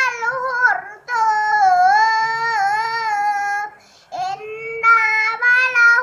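A four-year-old boy's voice reciting the Quran from memory in a melodic chant, with long held, gliding phrases. He breaks briefly for breath about a second in and again near four seconds in.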